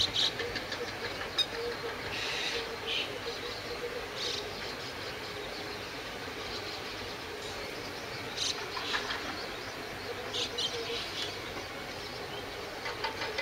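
Short bursts of rapid, pulsed chattering calls, several times, over a steady faint hum and an even background hiss.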